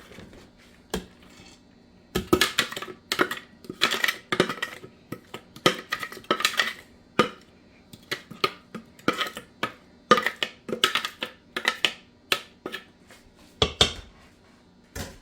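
Irregular clinks, knocks and rustles of kitchenware against a mixing bowl as shredded cabbage, carrot and onion are added and tossed together for coleslaw.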